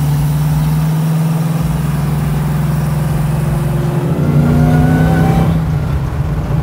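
Supercharged 6.2-litre Hemi V8 from a Dodge Hellcat, swapped into a 1969 Plymouth Road Runner, running under way at a steady pace. About four seconds in it grows louder and its pitch climbs as the car accelerates, then falls away briefly near the end.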